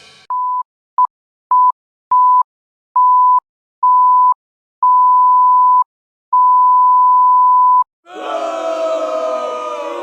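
Stock sound-effect beeps: a run of eight steady 1 kHz beep tones that grow longer, from short blips to beeps over a second long, the first one quieter. About eight seconds in, a stock crowd-booing effect starts, with many voices sliding down in pitch.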